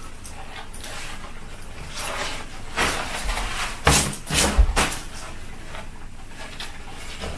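Cotton saree fabric rustling and swishing as the pleats are gathered and tucked in at the waist, with a few louder bursts around the middle.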